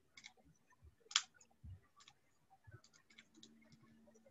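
Faint, scattered key clicks as numbers are punched in to work out a calculation, a few seconds apart with a quick run of light taps past the middle. A faint low hum sounds in the last second.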